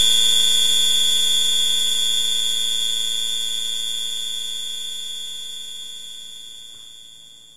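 A sustained ringing tone that starts on a blow and fades slowly away over several seconds. It holds several steady pitches at once, with a high, piercing whine the loudest. It is an added film sound effect, the dazed ringing in the ears of a man knocked to the ground.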